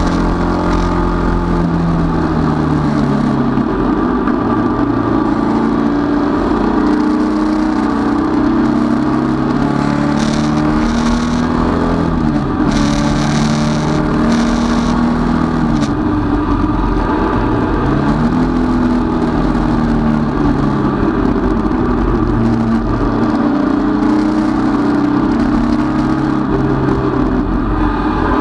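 Datsun 510 race car's engine heard from inside the cockpit under racing load, its note rising and falling repeatedly as the revs climb and drop, with a sharp dip in pitch about twelve seconds in.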